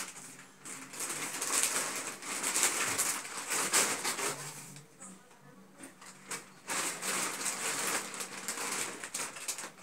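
Clear plastic wrapping on a large stuffed toy rustling and crinkling as it is pushed and dragged about, in two long stretches with a quieter pause between them.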